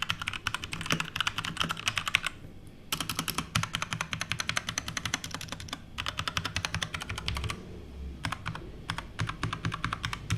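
Fast typing on a Keychron K2 V2 mechanical keyboard with Gateron Brown tactile switches: a quick run of keystroke clicks, broken by short pauses about two and a half and eight seconds in.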